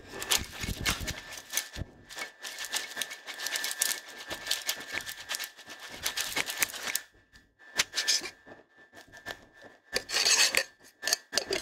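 Metal cocktail shaker shaken hard for about seven seconds, a fast rattling clatter: the reverse dry shake, which whips the pineapple juice into a foamy head. A short louder clatter about ten seconds in as the shaker is handled.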